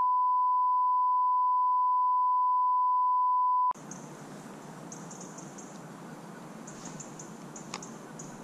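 A long, steady electronic beep on one high pitch that cuts off abruptly a little under four seconds in. After it, faint outdoor background hiss with a few short, high chirps.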